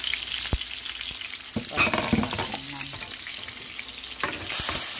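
Chicken thighs sizzling in hot oil in a stainless steel frying pan, a steady crackling hiss. There are a few knocks and a louder spell of sizzling about two seconds in, and a brief loud burst of sizzling near the end.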